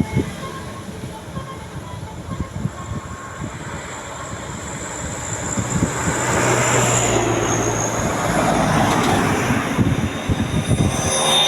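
Large tour bus driving past. Its engine and road noise swells from about six seconds in.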